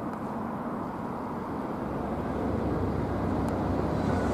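A JNR Class DE10 diesel-hydraulic locomotive's V12 diesel engine running as it approaches at low speed, the low rumble growing louder about halfway through.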